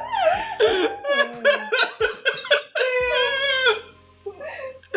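Several people laughing together, with giggles and a drawn-out, wavering high laugh about three seconds in.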